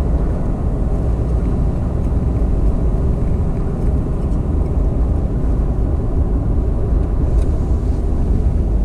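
Steady low road and engine rumble heard inside the cabin of a moving vehicle.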